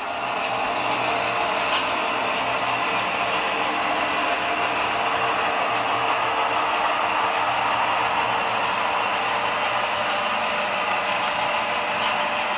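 HO scale model train running on the layout, its DCC sound decoder playing a steady diesel engine sound that swells during the first second, then holds level.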